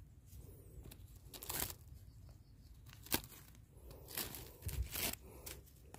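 A bag being handled, crinkling and rustling faintly in several short bursts, the sharpest about three seconds in.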